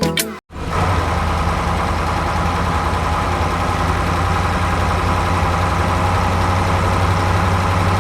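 Tractor engine idling steadily, with a deep hum and a buzzy mid-range drone. It starts about half a second in, just after the music cuts off.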